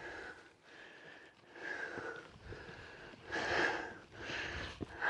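A hiker breathing hard from the effort of a steep uphill climb, a heavy breath in or out about once a second.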